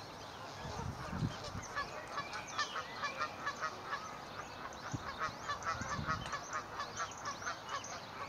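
Swans calling: newly hatched cygnets peeping over a rapid run of short calls, about three a second, that starts about two seconds in.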